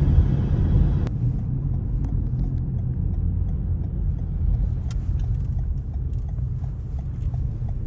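Car driving, a steady low road-and-engine rumble heard from inside the moving vehicle.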